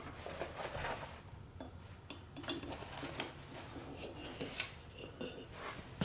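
Scattered light metallic clinks and handling noises, from steel crucible tongs and gear being handled around a tabletop electric melting furnace.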